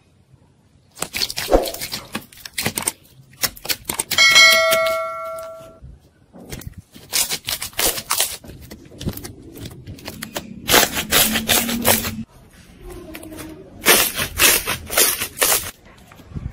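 Clear, bubbly jelly slime being pressed and folded by hand, making clusters of sharp crackling pops and squelching clicks as trapped air bubbles burst. Around four seconds in, a ringing chime-like tone sounds and fades over about a second and a half.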